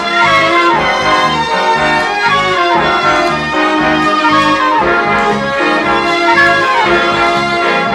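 Background music: a song passage with a melody line that glides up and down over a steady, full accompaniment.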